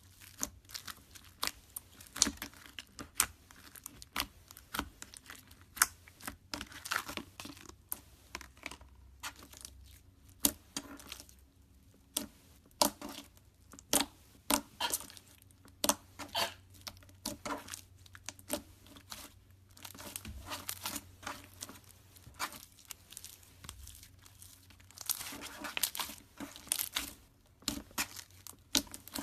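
Slime being squeezed and stretched by hand: irregular sticky clicks and pops, with a few short crackling stretches.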